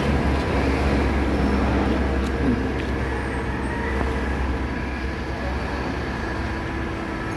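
Machinery running steadily in an engine machine shop: an even low hum and rumble of motors.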